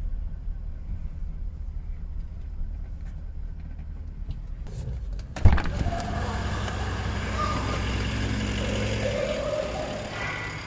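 Toyota LandCruiser 79 Series engine running low and steady as the truck rolls slowly into the workshop. About five and a half seconds in comes one sharp clunk, after which the sound opens up into a fuller, echoing room noise.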